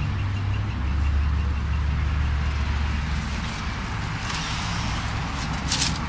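Road traffic passing on the street: a steady low rumble, with a stretch of hiss a little after four seconds in and a short sharp sound near the end.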